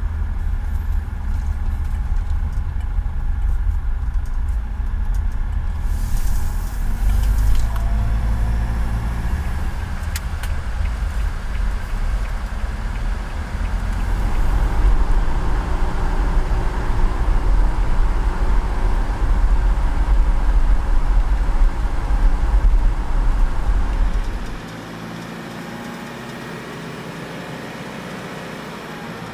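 Road vehicle running: a steady low rumble of engine and road noise, which drops suddenly to a quieter hum near the end.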